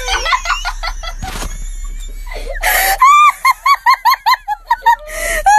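A high-pitched voice laughing in a rapid run of short rising-and-falling notes, about five a second, strongest in the second half.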